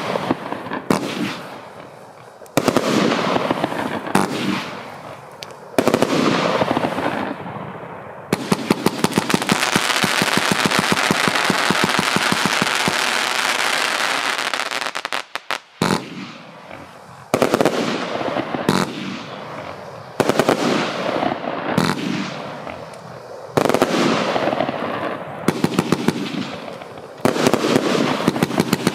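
Riakeo 'Cyttorak' 142-shot compound firework cake firing: a rapid series of launch thumps and bursting shots. Through the middle it is a long, dense run of rapid-fire crackling that cuts off suddenly.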